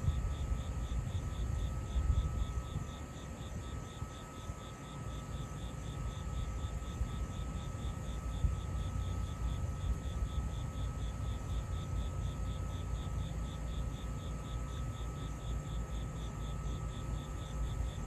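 Insects chirping in a steady, high pulse of about four chirps a second, over a low, rumbling background noise.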